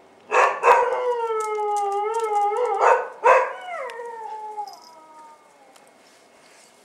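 Bull terrier whining: a couple of short yelps, then a long wavering whine, then a second whine that falls in pitch and fades out.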